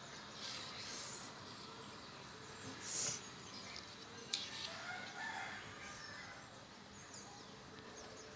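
Fingers working through hair close to the microphone during nit picking: a few short scratchy rustles, one louder around three seconds in, and a single sharp click a little over four seconds in. Faint bird calls sound in the background.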